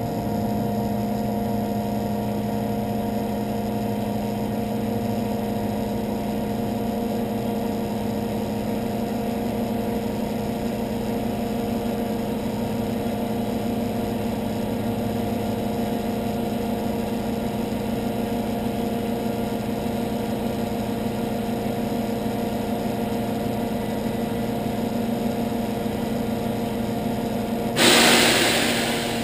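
Parked truck running steadily with a constant hum; a lower part of the hum drops out about halfway through. Near the end a sudden loud hiss rises above it and fades over about a second and a half.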